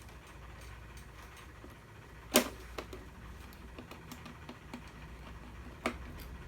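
Small radio-controlled model truck making a steady low hum with scattered sharp clicks and ticks. The loudest click comes about two and a half seconds in, and another comes near the end.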